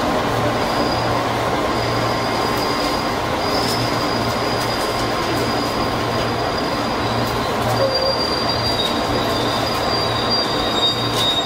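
JR East 205 series electric commuter train heard from its front cab as it runs along the track, a steady rumble with a constant high-pitched whine over it.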